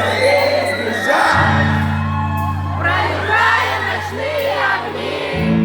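Live pop concert music heard from within the audience: a synth bass holding long notes that change about a second in and again near the end, with voices singing and whooping over it in a large hall.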